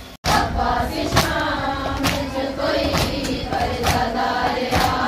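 A group of women chanting a noha in unison, with sharp beats about once a second from hands striking chests (matam) keeping time. The chant begins abruptly a moment in.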